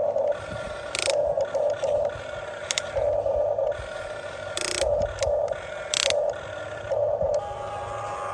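Huina 1550 RC excavator's small electric motors and gearboxes whirring in repeated short bursts as its controls are worked, with a few sharp clicks in between.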